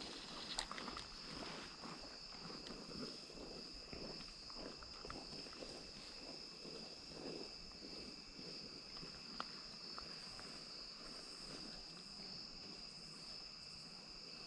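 A steady, high insect chorus trilling without a break. Faint rustling footsteps come through over the first half, and a single sharp click sounds about nine seconds in.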